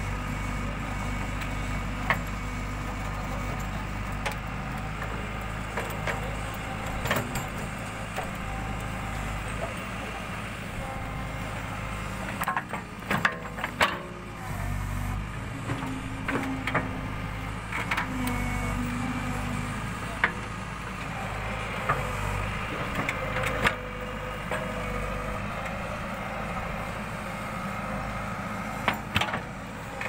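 Backhoe loader's diesel engine running steadily under load as the backhoe digs a trench, with scattered sharp knocks from the bucket and arm working the soil, a cluster of them about halfway through.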